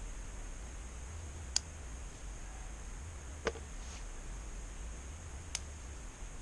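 Scissors snipping sugar snap pea pods off the vine: three sharp clicks about two seconds apart, over a steady low rumble.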